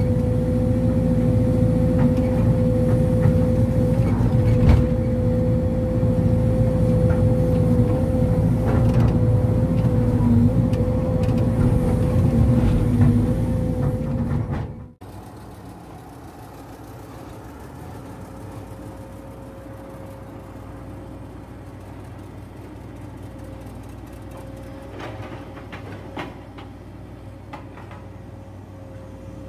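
Sumitomo SH210 hydraulic excavator running as it digs, heard close up: a diesel rumble with a steady high whine over it. About halfway it drops suddenly to the same kind of machine heard much quieter and farther off, still running steadily, with a few faint knocks near the end.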